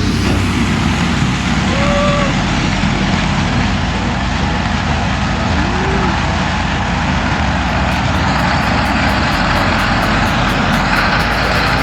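Heavy farm machinery harvesting maize: a large engine running steadily under load with a dense mechanical rumble.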